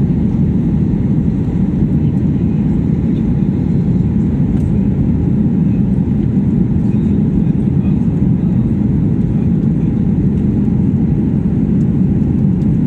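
Airliner's engines at takeoff power, a steady low roar that holds its level throughout.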